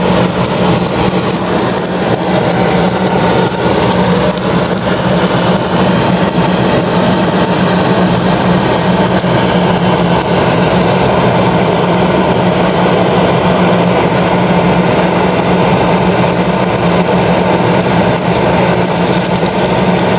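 Buns frying in hot oil in a frying pan, with a steady sizzle and a constant low hum under it.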